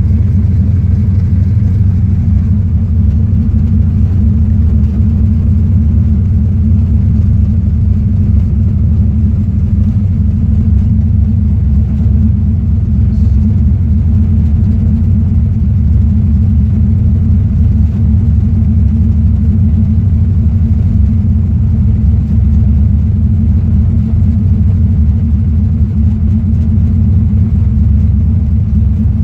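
Turbocharged, FiTech fuel-injected engine running on E85, idling steadily at about 1,000 rpm while still cold, heard from inside the car.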